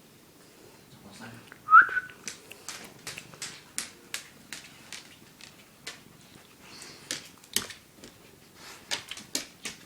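White German Shepherd giving one short, high whine that rises and then holds, a sign of a dog upset at being left out while the cat is petted. A run of sharp clicks and rustles follows, about two or three a second.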